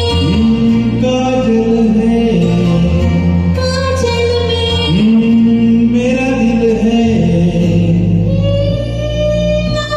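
Backing music for a Hindi film song playing its melodic intro, with sustained notes and a voice-like or choir-like line in it.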